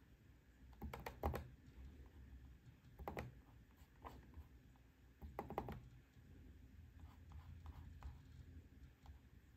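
Faint clicking of a PowerBook G4's trackpad button, a few clicks in short pairs spaced about two seconds apart, over a low room hum.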